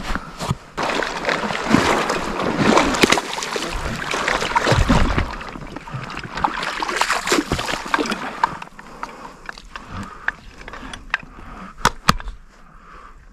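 Wading through shallow marsh water in waders: splashing and sloshing, irregular and fairly loud, easing off about two-thirds of the way through, with a couple of sharp clicks near the end.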